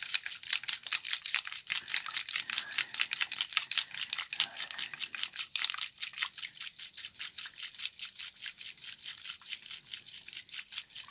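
Hand-held plastic slime-poop toy shaken hard and fast, its shaker ball rattling inside with the water and slime mix in a fast, even rhythm of about five shakes a second.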